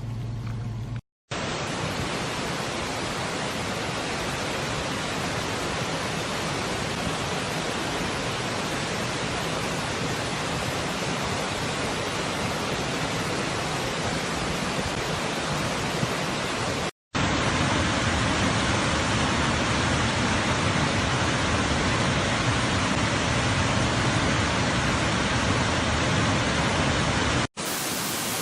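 Waterfall's falling water pouring with a steady, dense rush. It comes in separate clips broken by short silent cuts: about a second in, just past the middle, and near the end.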